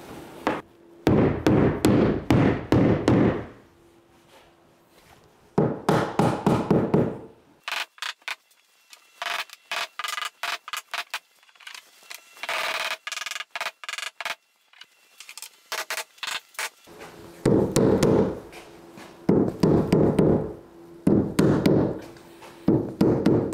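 Rubber mallet pounding Hyfax runners into place on a plastic Otter ice-fishing sled: bursts of rapid blows, several a second, in groups lasting a second or two. A quieter run of lighter, sharper knocks comes in the middle.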